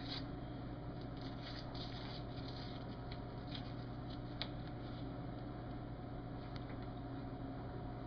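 Paper wrapper of a bar of Ivory soap rustling and crinkling as it is unwrapped, faint and in short scrapes over the first few seconds, with a light click about four and a half seconds in. A steady low hum runs underneath.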